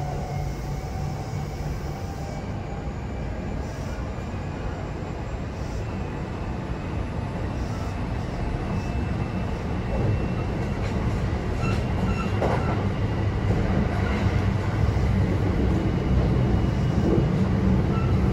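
Kintetsu 9020 series electric train running, heard from inside the passenger car: traction motor and wheel-on-rail noise that grows steadily louder as the train gathers speed.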